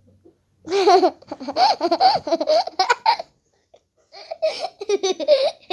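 A child laughing hard in repeated high-pitched bursts, in two fits: one starting about a second in, a short pause, then another starting around four seconds in.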